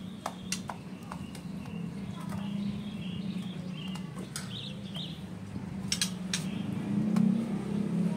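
Soft, short chirps from a caged white-rumped shama (magpie-robin) and scattered sharp clicks from inside the wire cage, over a steady low hum that swells near the end.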